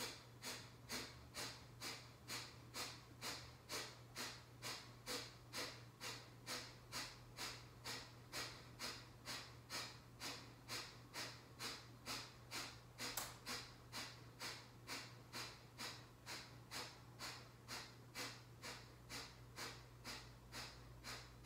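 Kapalabhati pranayama breathing: short, forceful exhalations through the nose at a steady pace of about two a second.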